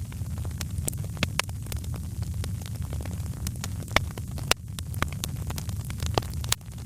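Wood fire crackling: irregular sharp pops and snaps, a couple of them louder, over a steady low rumble of the burning fire.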